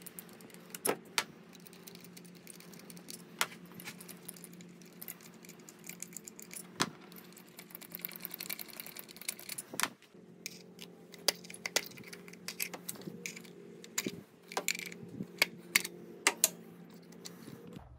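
Scattered metallic clicks and clinks as the ignition coil packs, their hold-down bolts and connectors, are handled and pulled out of the top of a Toyota Corolla engine. The clicks come irregularly, busier in the last several seconds, over a steady low hum.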